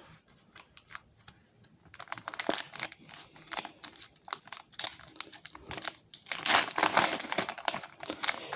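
Foil booster-pack wrapper being crinkled and torn open. A few light clicks come first, then dense crinkling from about two seconds in, loudest near the end.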